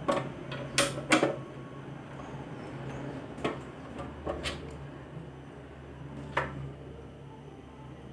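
Clicks and knocks of a welding cable's plug being pushed and twisted into the front output socket of a RYU inverter welder, with the case handled against the floor: about six sharp clicks spread out, the loudest two about a second in. A steady low hum underneath.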